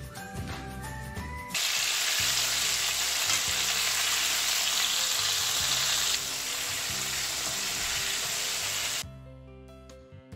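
Battered chicken pieces deep-frying in hot oil, a loud steady sizzle that starts suddenly and stops shortly before the end, over background music.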